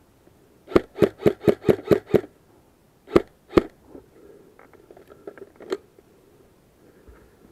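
Airsoft rifle firing a quick string of single shots: seven at about four or five a second, then a short pause and two more, followed by faint crackling in the brush.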